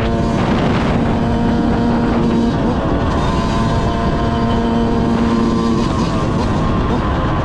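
Yamaha YZ125's single-cylinder two-stroke engine running at steady high revs, its tone breaking off briefly about two and a half seconds in and again near six seconds.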